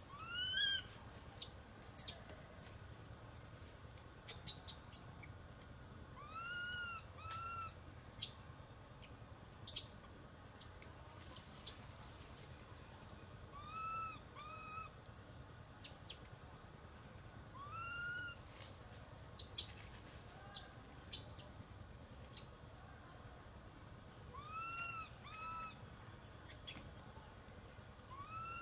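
Birds calling: a repeated call of two arched, rise-and-fall whistled notes, the second shorter, coming every several seconds, over many short sharp high chips.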